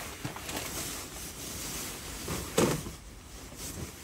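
Rustling and rubbing of a sleeping pad and nylon sleeping bag being handled and laid out on a camp cot, with a few small knocks and one soft thump about two and a half seconds in.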